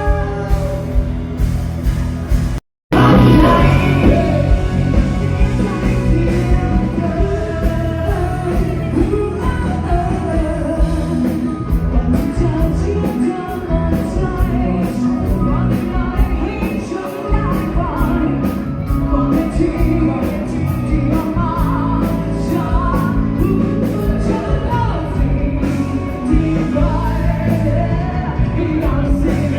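Live band with a singer performing an amplified rock-style song. The sound cuts out completely for a split second about three seconds in.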